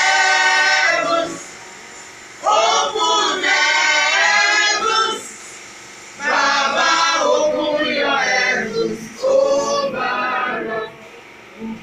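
A group of voices singing together in a worship gathering, in loud phrases of two to three seconds with short breaks between them.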